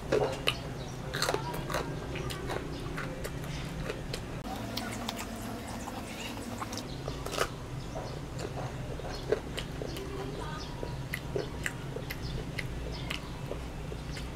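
A person chewing toasted baguette pizza close to the microphone, with irregular sharp crunches and mouth clicks. The loudest crunches come right at the start and twice more a little past the middle.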